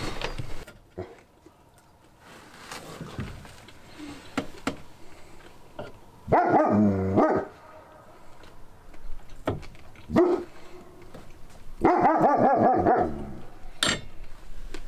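A dog giving two drawn-out, wavering vocal calls, each about a second long and roughly five seconds apart, between light metal clicks of a fork on a pan.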